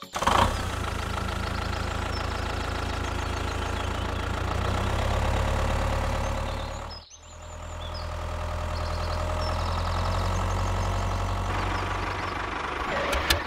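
An engine runs steadily. It breaks off briefly about halfway through, then runs again.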